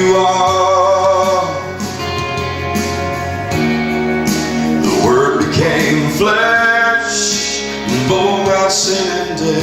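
Live worship music: slow held notes, with singing over guitar accompaniment.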